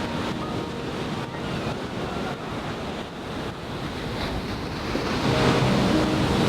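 Ocean surf washing on the beach, with wind buffeting the microphone. Soft background music comes back in near the end.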